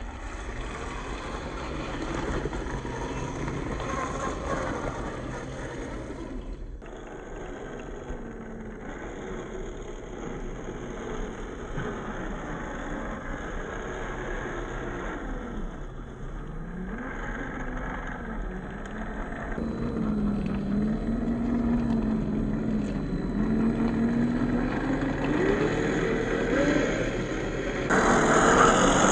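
Traxxas TRX4 RC crawler's brushed 550-size 21-turn electric motor and geartrain whining as it drives, the pitch rising and falling with the throttle. The sound changes abruptly about 7 s in and again near the end.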